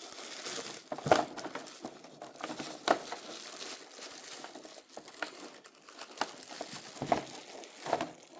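Plastic packaging crinkling and rustling as it is handled and pulled off, with several sharper crackles.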